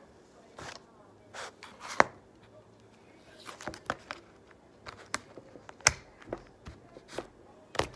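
Clear plastic slime tub being closed and handled: its snap-on lid pressed down with a series of sharp plastic clicks and taps, the loudest about two seconds in and again near six seconds.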